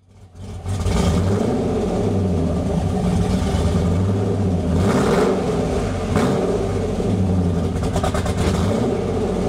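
Car engine running, heard at its dual exhaust tips, with a steady low exhaust note that swells briefly twice near the middle. The sound fades in over the first second.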